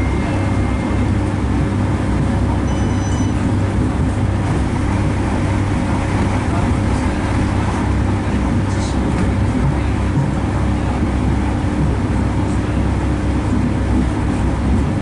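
Steady running noise of a diesel passenger train at speed, heard from inside the carriage: a low engine drone over the rumble of wheels on the track.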